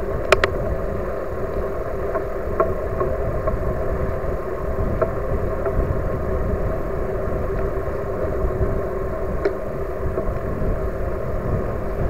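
Riding noise on an e-bike along an asphalt path: wind rumbling on the microphone and tyres rolling, with a steady hum underneath. There are a few sharp clicks, two close together near the start.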